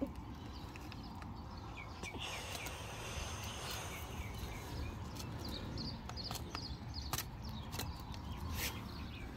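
Filleting knife working through a large snapper, giving scattered sharp clicks and crunches as the blade cuts along the bones and scales, over a steady low rumble. Small birds chirp repeatedly in the background, mostly in the first half.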